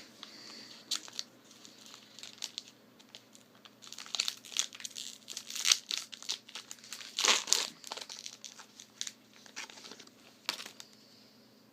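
Foil trading-card pack wrapper crinkling and tearing as it is ripped open, in irregular crackles that are loudest around the middle.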